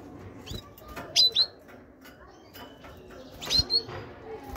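Caged great tit giving short, sharp high call notes, a loud pair about a second in and another near the end, with a few soft thumps and wing flutters as it moves about the cage.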